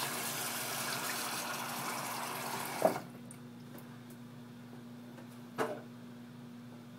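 Bathroom sink tap running, shut off abruptly about three seconds in with a sharp knock; a second knock follows a couple of seconds later over a steady low hum.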